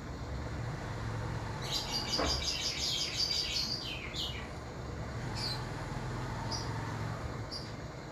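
Small birds chirping: a quick run of high chirps about two seconds in, then single chirps every second or so. A steady low rumble runs underneath.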